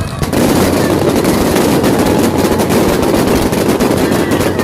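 Fireworks going off in a rapid, dense barrage of bangs and crackles, starting abruptly just after the start.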